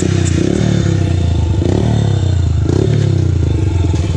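Dirt bike engine running at idle, its revs rising and falling a few times.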